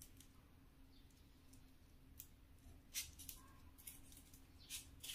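Near silence over a faint steady hum, with a few soft, brief rustles of bamboo leaves as a thick needle is drawn slowly through a leaf-wrapped zongzi, the clearest about three seconds in.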